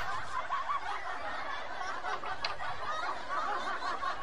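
A bolo knife digging into wet mud, with a single sharp chop about two and a half seconds in, over a dense, steady chatter of short high chirps.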